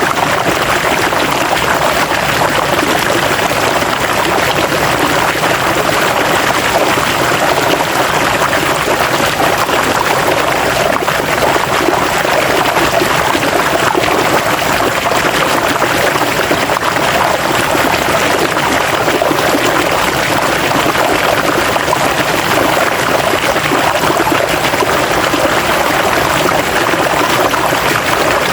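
River water flowing and splashing steadily.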